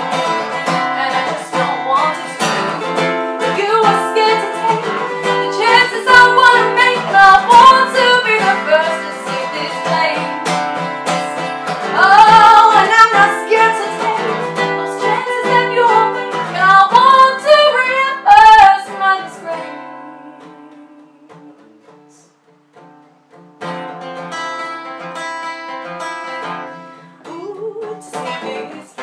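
A woman sings over a strummed acoustic guitar. About two-thirds of the way through, the voice stops and the guitar dies down to a few quiet notes. A few seconds later the strumming picks back up, and the voice returns near the end.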